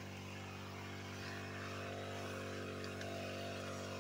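Engine of a hose-fed power crop sprayer running steadily at a constant speed, pumping spray through the hose to the nozzle.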